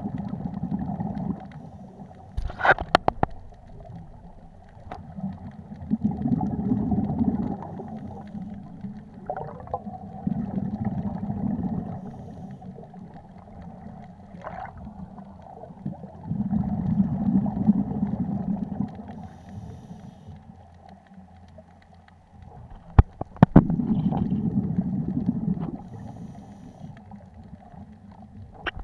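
Scuba regulator exhalations underwater: bursts of bubbles rumbling for a second or two, about every five to six seconds, with quieter inhalations between. A few sharp knocks, about two seconds in and again about 23 seconds in.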